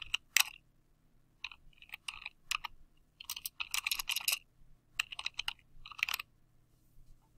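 Computer keyboard being typed on: quick runs of keystroke clicks in four short bursts, with brief pauses between them.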